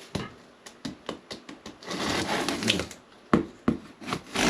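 Handling noises: a string of sharp clicks and short scraping rustles as a folding Silky saw and a cardboard shipping box are handled.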